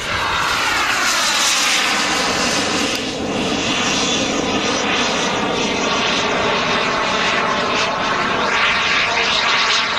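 Twin JetsMunt Merlin model turbine jet engines of a giant-scale RC English Electric Lightning running at power as the model flies by: a loud jet whine and rush that sweeps down in pitch over the first second or two as it passes, then carries on steadily with gliding pitch shifts as it manoeuvres.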